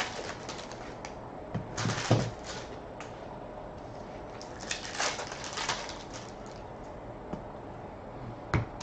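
Hockey trading cards and packs being handled: short, scattered rustles and crinkles of card stock and pack wrappers, with a sharper tap near the end.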